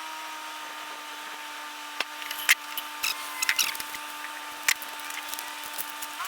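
Scattered clicks and clacks of tools being handled, over a steady mechanical hum.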